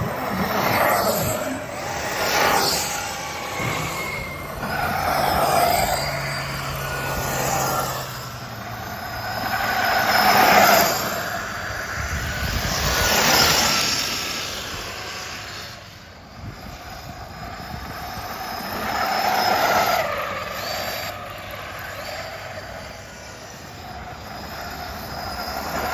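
Gas-powered 1:5-scale RC race cars, whose small two-stroke engines rev and whine as the cars pass one after another. The sound swells and fades every few seconds as each car goes by.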